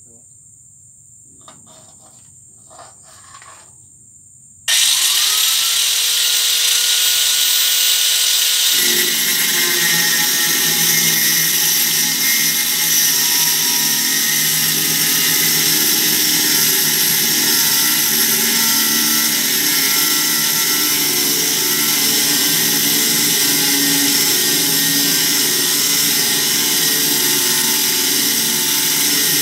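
Insects trilling, then about five seconds in an electric angle grinder switches on, its whine rising as the disc spins up. A few seconds later the disc bites into the steel post and grinds steadily and loudly.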